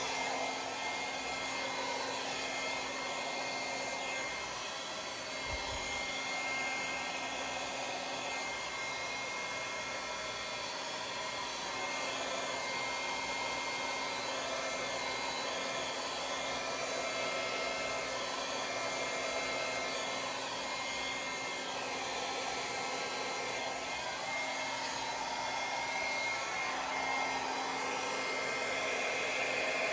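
Handheld hair dryer running steadily with a faint hum, its air blowing wet acrylic paint across a canvas.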